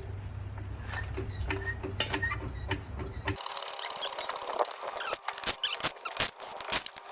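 Irregular small clicks, scrapes and squeaks of hand work on car parts. About three and a half seconds in, a low hum stops suddenly and the clicking becomes busier.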